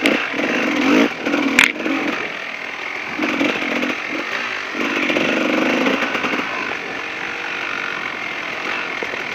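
KTM 380 two-stroke dirt bike engine revving up and down as the rider works the throttle along a trail. A single sharp knock about a second and a half in.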